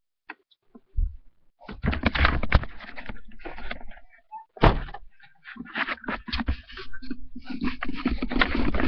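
Thumps and clatter of a car's doors and lids being handled, with one sharp thunk about halfway through.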